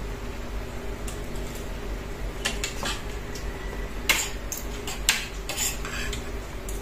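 Fork and spoon clinking and scraping against a plate while eating rice, about eight short light clinks spread over the second half.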